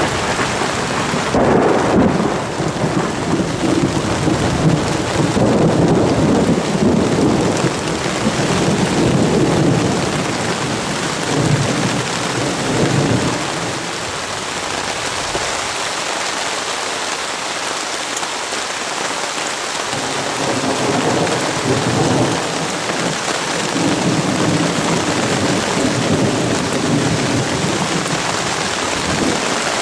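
Heavy rain falling steadily on lake water and foliage, with long rolls of thunder rumbling through most of the first half, easing off, then rumbling again later.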